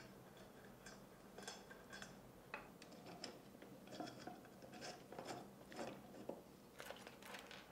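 Faint, irregular metallic clicks and light scrapes of screws and fittings being handled and snugged by hand on an aluminium extrusion frame.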